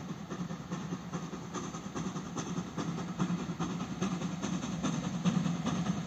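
Ol49 steam locomotive hauling a passenger train at speed, its exhaust beating in quick succession over the rumble of the train, getting louder as it approaches.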